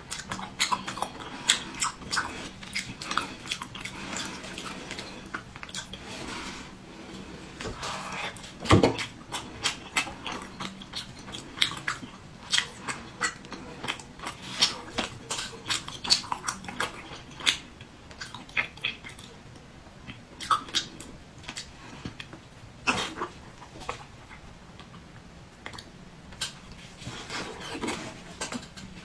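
Close-up eating sounds from chewing soft, fatty braised pork belly: wet chewing with many short lip smacks and mouth clicks, one louder about nine seconds in.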